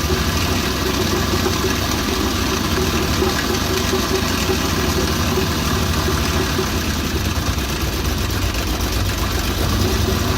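Suzuki Bolan's three-cylinder petrol engine idling steadily with a misfire, running with the first cylinder's injector unplugged for a cylinder check. Unplugging it changes the sound only slightly, which the mechanic takes for a fault in the first cylinder's head, possibly the valves or tappets; he later traces it to a blown head gasket.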